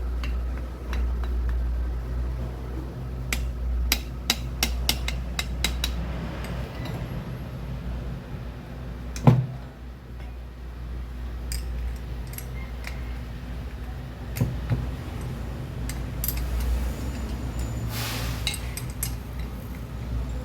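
Metal hand tools and engine parts clinking and tapping during engine teardown work, with a quick run of clicks a few seconds in and one louder knock about nine seconds in, over a steady low hum.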